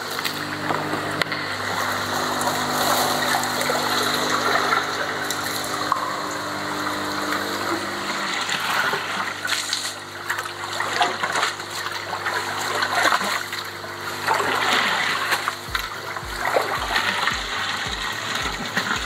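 Water pouring steadily as koi-pond filter drums drain out through their valves. Splashing and dripping come in the second half as wet filter media is lifted out of a drum. A steady low hum under the water fades out about halfway.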